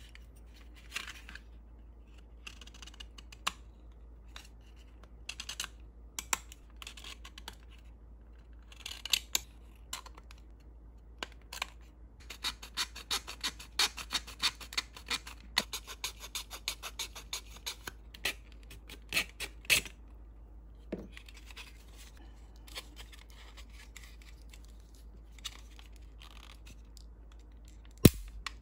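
Hand tools working hard styrene plastic: a fine scriber or blade scraping the edge of a model car floor pan in short strokes, with a long run of quick back-and-forth scrapes in the middle. Near the end comes a sharp snip, like side cutters closing.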